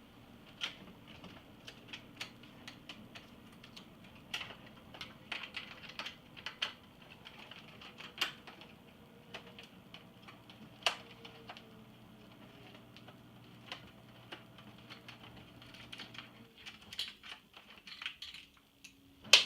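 Irregular light clicks and taps of tools, screws and plastic and metal parts being handled while taking apart an iMac G3, over a faint steady hum, with a sharper knock near the end.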